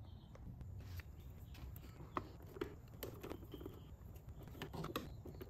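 Faint, irregular small clicks and scrapes of a screwdriver and hands working the screws that hold a generator's ignition module.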